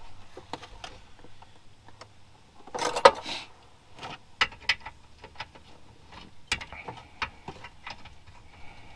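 Hand tools working bolts under a car: irregular metallic clicks and clinks, with a louder rattling burst about three seconds in.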